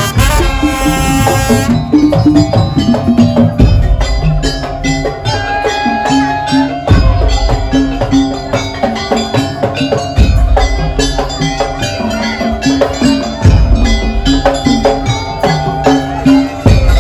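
Madurese daul percussion ensemble playing an instrumental arrangement: fast wood-block-like clicks and drums under a melody, with a heavy low boom about every three seconds. A falling run of notes opens it.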